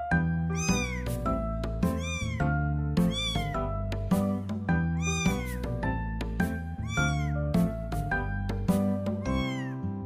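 A very young kitten mewing over and over, short high-pitched mews about once a second, over background music.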